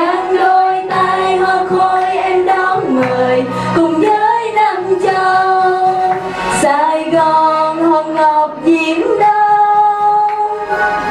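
Young women's voices singing a melodic song over backing music, with long held notes.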